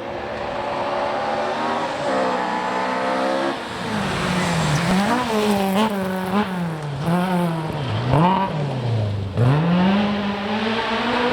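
Rally car engine driven hard at speed, growing louder as it approaches. The revs rise and fall sharply over and over with gear changes and lifts, then drop deeply about nine seconds in before climbing again.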